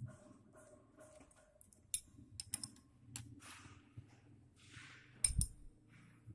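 Wrench and screwdriver clicking and tapping against the rocker arm adjusting screws and locknuts of a Toyota 5K engine as the intake valve clearance is set. The clicks are scattered, with two louder knocks in quick succession about five seconds in.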